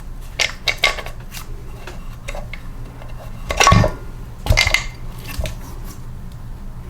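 Small metal engine parts clinking and clattering as they are handled and set down, with a few light clicks and then two louder clatters about three and a half and four and a half seconds in.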